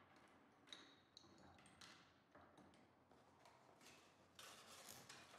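Faint handling noises: light clicks and taps as security-camera cables and mounts are moved about on a wooden tabletop, then a brief rustle of packaging about four and a half seconds in.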